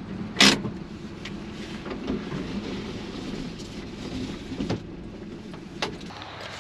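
A 1997 Daihatsu 4x4 kei truck's small 660 cc engine idling, heard from inside the cab, with a sharp click about half a second in and two lighter clicks near the end.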